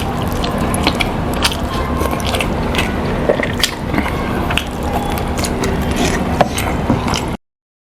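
Loud, wet chewing and lip-smacking of a man eating chicken with his mouth open: a dense run of sharp smacks and clicks over a steady hum from the camera's built-in mic. It cuts off abruptly near the end.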